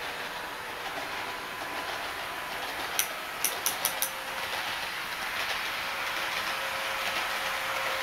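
HO-gauge model electric train pulling away under a homemade microcomputer PWM controller, which makes the unmodified motor itself give out a synthesized drive sound: steady humming tones over a rolling rumble that grows louder as the train comes closer. A quick run of sharp clicks about three to four seconds in.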